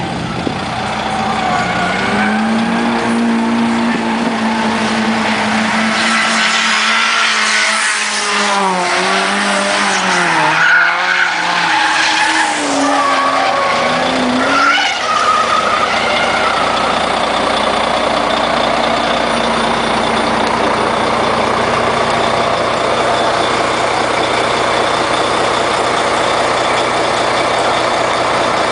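Drift car engines revving up and down with tyre squeal for roughly the first half, ending in a quick rise in pitch, then a steady engine rumble.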